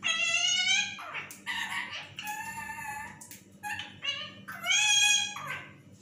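Yellow ringneck parakeet calling: a run of loud, shrill parrot calls of different lengths, the longest at the start and again about five seconds in.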